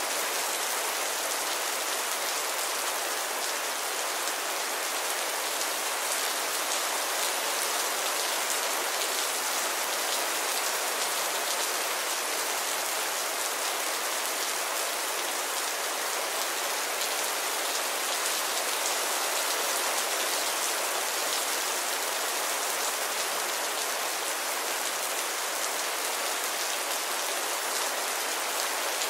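Steady rain falling: an even, unbroken hiss with no thunder or single drops standing out.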